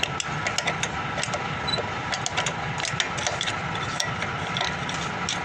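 Isuzu FRR truck's drum brake adjuster being turned with a tool through the backing plate to tighten the shoes, giving irregular ratcheting clicks, several a second, over a steady hum.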